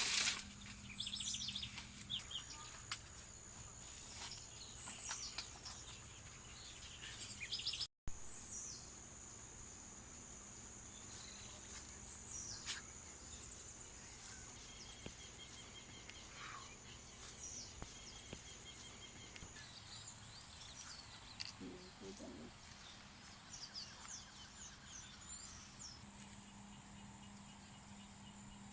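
Several birds chirping and calling in short notes and quick sweeps over a steady, high-pitched insect drone. The sound cuts out briefly about eight seconds in.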